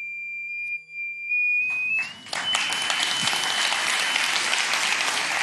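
High pure tone from a frequency generator driving a Chladni plate through a sound driver, stepping upward in pitch as the frequency is raised. About a second and a half in, audience applause breaks out and drowns the tone out.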